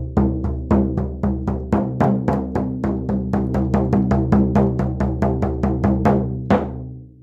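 Hand-held shamanic frame drum with a hide head, struck with a beater in a steady, fast, even beat over a low ring. The last stroke comes about six and a half seconds in, and the ring then dies away.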